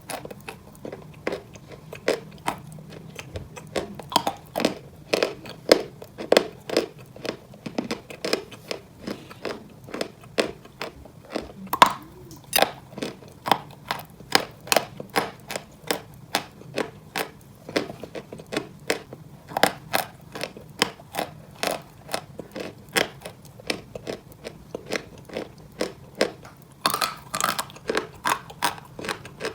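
Dry white Turkestan chalk being chewed, crunching in many sharp, crackly bites several times a second.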